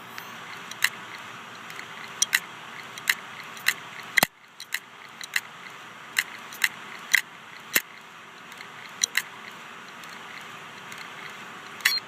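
Failing hard disk drive running with a steady whir while its heads click sharply and irregularly, about twenty clicks unevenly spaced: a sign of drive failure.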